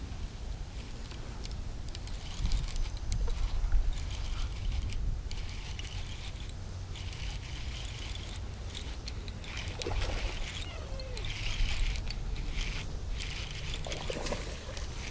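Wind rumbling on the microphone, with scattered light clicks and rattles of fishing tackle being handled.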